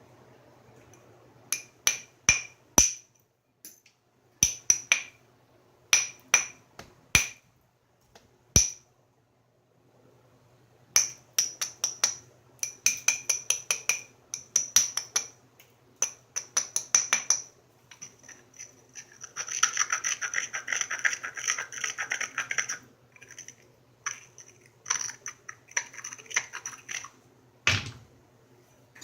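Flintknapping: an antler tool tapping and scraping along the edge of a stone biface, giving sharp clicking taps in quick groups with a glassy ring. A few seconds of steady grinding about two-thirds of the way through is the edge being abraded to prepare a platform. One heavier strike comes near the end.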